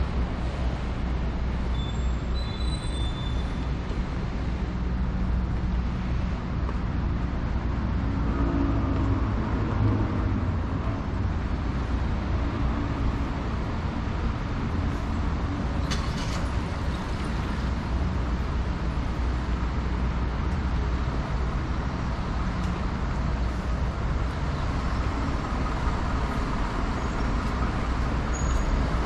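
Road traffic passing steadily, a continuous rumble, with a single sharp click about halfway through.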